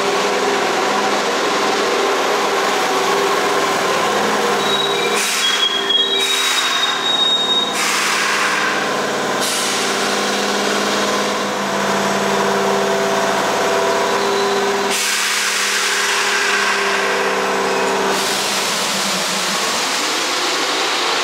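Pre-VVVF Keihan Railway electric train running at a station, its traction motors and gears whining in several steady tones over wheel-on-rail rumble. A thin high squeal comes in briefly about five to seven seconds in, and a rising whine begins near the end.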